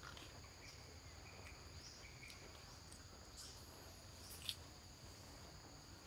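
Faint forest ambience, close to silence: a steady, high-pitched insect chorus holding two even tones, with a few soft clicks, the sharpest about four and a half seconds in.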